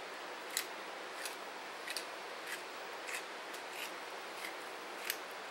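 Stainless steel pepper mill being twisted by hand, grinding black peppercorns in about eight short, scratchy strokes, roughly one every two-thirds of a second, over a steady low hiss.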